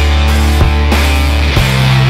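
Rock background music with sustained bass notes, guitar and drum hits.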